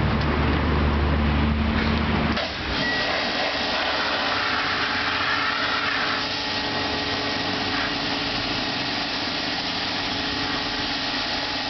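A motor running steadily. About two and a half seconds in, a low rumble drops away and an even, higher whir carries on.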